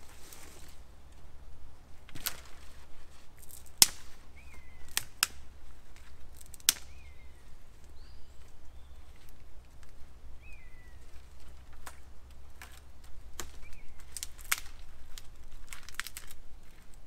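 Sharp, irregular cracks and snaps of sticks at a small wood campfire, about a dozen, the loudest about four seconds in. Between them a woodland bird gives a short chirp four times.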